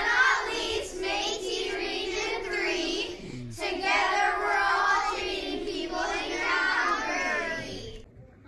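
A class of children chanting a verse together in unison, a choral reading in a sing-song rhythm. There is a brief pause about three and a half seconds in, and the voices stop just before the end.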